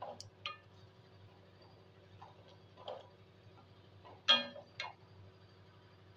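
Wooden spatula stirring thick chutney in a steel kadai: scattered light ticks and taps. About four seconds in there is one short, sharp, loud pitched sound, with a fainter one just after the start.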